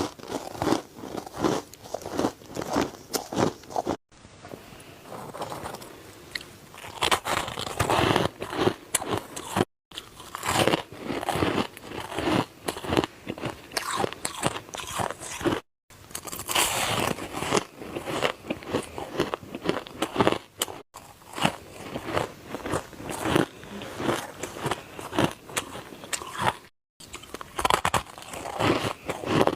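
Close-miked biting and chewing of ice: rapid, dense crunching strokes. The crunching is broken by several brief gaps of dead silence.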